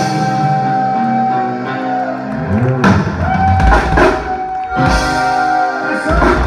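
Conjunto band playing live: a button accordion holds long sustained notes over an electric bass and a drum kit, with several heavy kick-and-cymbal accents in the second half.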